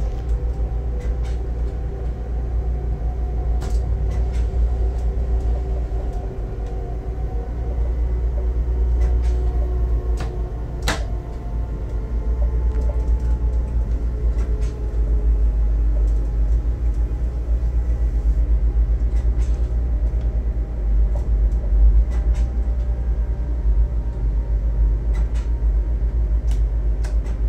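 Electric train running along the track, heard from inside its front cab: a steady low rumble with scattered sharp clicks from the wheels and rails, the loudest about 11 seconds in. A faint whine sits over the rumble and drifts slightly lower in pitch over the first half.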